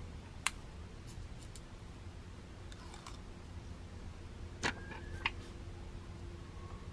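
Fingers handling a self-adhesive thermal pad and picking at its thin plastic backing film: a handful of separate light clicks and crinkles, the loudest pair near the end, over a faint steady room hum.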